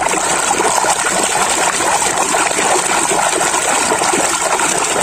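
Water sloshing and splashing steadily as a hand swishes a toy around under the surface in a tub of water.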